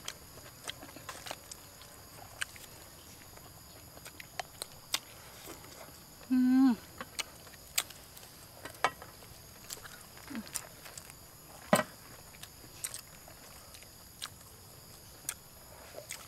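Close mouth sounds of people eating by hand: scattered wet smacks and chewing clicks. A short, falling 'mm'-like voice sound about six and a half seconds in is the loudest moment.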